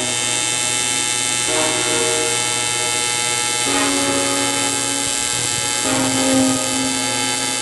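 A steady, unwavering mechanical buzz with a high whine from shop work on an aluminum boat, holding one pitch without a break, over background music.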